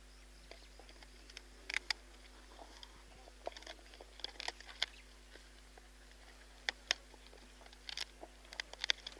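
Spotted hyaena crunching buffalo bones in its jaws: irregular sharp cracks and crunches, some coming in quick clusters, with the loudest snaps a couple of seconds in and near the end.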